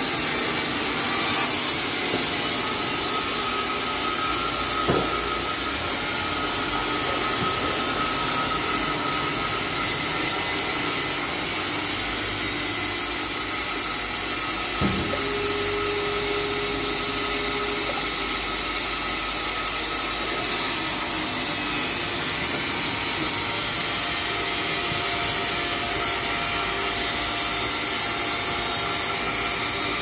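15-year-old Carpathian SMSA 110 semi-automatic horizontal band sawmill running steadily, a loud even hiss from the saw. Two sharp clicks come about five and fifteen seconds in, the second followed by a brief steady tone.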